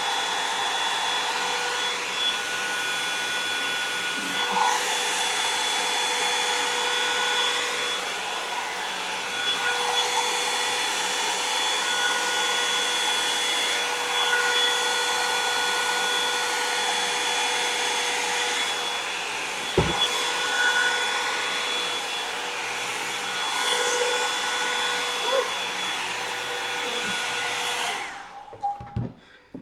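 Revlon One-Step hair dryer and volumizer, a hot-air brush, blowing steadily with a motor whine over the rush of air, switched off about two seconds before the end. A single brief knock about two-thirds of the way through.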